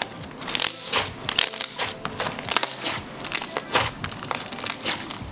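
Thick glossy slime mixed with large foam beads and cereal pieces being squeezed and worked by hand, giving an irregular run of crunchy crackles and sticky clicks.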